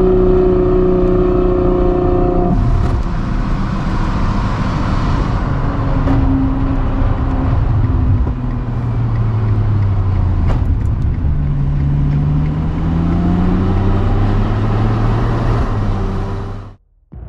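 Ferrari 812 GTS's naturally aspirated V12 through a Novitec exhaust, heard from the cabin: running at steady revs, then easing off about two and a half seconds in and pulling at lower revs with a gentle rise in pitch, over road noise. The sound cuts off suddenly near the end.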